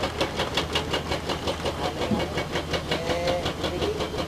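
Hydraulic breaker on a Caterpillar excavator hammering rock with rapid, even blows, about five a second, over the steady running of the excavator's diesel engine.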